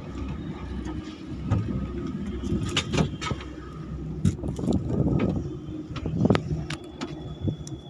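Ropeway gondola cabin in motion: a steady low rumble with frequent rattling clicks and knocks from the cabin. A thin, steady high whine comes in near the end.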